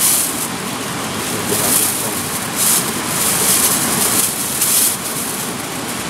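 Thin plastic bags crinkling and rustling in bursts as they are handled, over a steady rushing noise.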